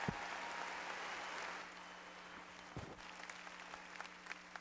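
Audience applause dying away in the first second and a half, leaving a few scattered claps and a couple of dull thumps.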